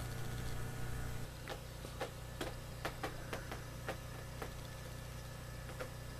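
Low steady hum of aquarium equipment, with a run of about ten sharp clicks in the middle and one more near the end.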